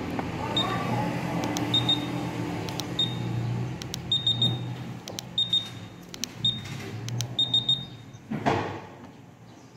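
Honda PCX 160 smart-key answer-back buzzer giving short high beeps, singly, in pairs and in quick runs of three or four, as the key fob button is pressed to cycle through its buzzer patterns. Near the end there is one brief swish.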